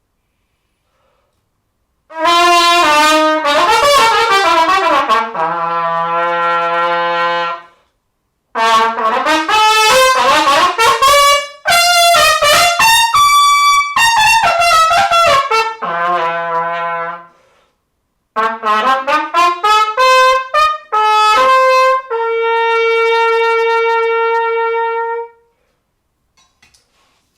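Solo trumpet playing a warm-up in three phrases, each a quick flowing run of notes that settles onto a long held tone. The first two phrases end on a held low G and the last on a higher sustained note.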